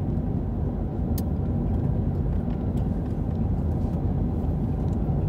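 Steady low rumble of a running vehicle.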